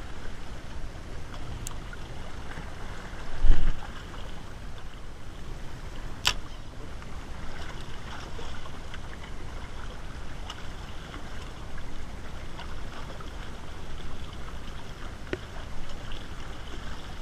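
Sea water washing against breakwater rocks, with wind buffeting the microphone; a low thump comes about three and a half seconds in and a sharp click about six seconds in.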